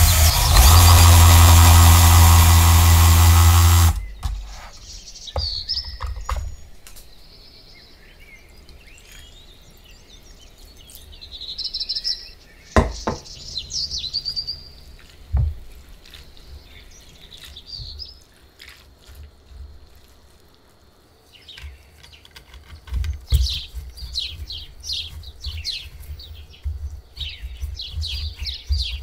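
A rotary spiralizer cutting potato into thin strands, a loud steady whirr that stops about four seconds in. Then quieter handling of the wet potato strands in a bowl of water, with a few soft knocks and scattered high chirps.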